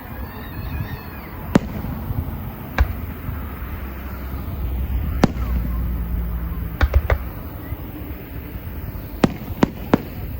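Aerial fireworks bursting: about nine sharp bangs at irregular intervals, some in quick clusters of two or three, over a continuous low rumble of shells.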